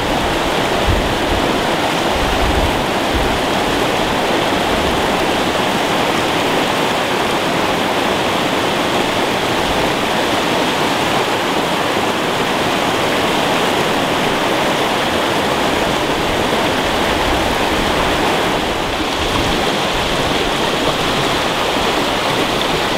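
Steady rush of water from a small mountain trout stream.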